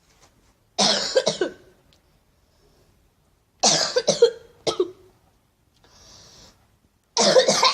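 Deliberate, exaggerated fake coughing by one person: three loud coughing fits about three seconds apart, each a run of harsh hacking coughs.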